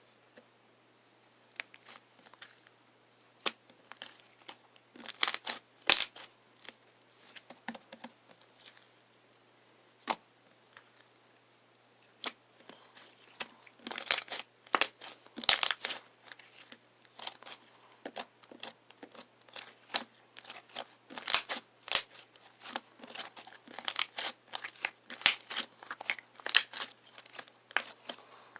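Slime being squeezed, stretched and poked by hand, giving irregular crackling clicks and pops; sparse at first, then coming thick and fast from about halfway through.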